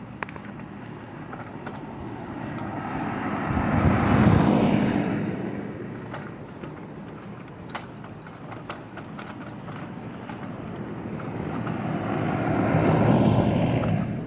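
Two vehicles passing by, each swelling and fading over a few seconds: one peaks about four seconds in, the other near the end. Under them is the steady hum of running air-conditioner condensing units.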